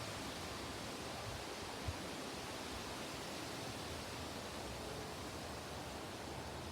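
Steady wind noise with a rustle, and a short low thump about two seconds in.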